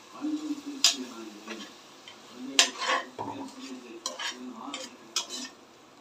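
Perforated metal spoon stirring thick masala in a metal pressure cooker, with irregular scrapes and clinks against the pot's base and sides.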